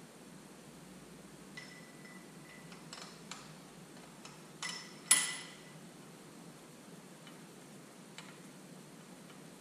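Sparse metallic clicks and clinks of hand tools working the head bolts on a Detroit Diesel 3-53 cylinder head as it is drawn down, with one sharp ringing clank about five seconds in.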